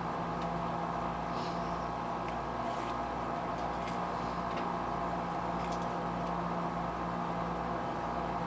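Steady hum of a small electric motor running, with several fixed tones and a few faint light clicks from handwork at the bench.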